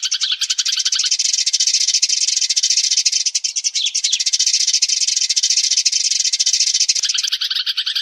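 Recorded sparrow flock call: a dense, continuous chatter of rapid chirps, with a lower series of chirps that stops about a second in and comes back near the end. It is a lure call for drawing sparrows to a trap.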